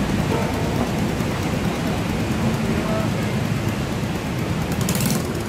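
Steady noise of rain and traffic on a wet road, with a motor scooter coming up close near the end.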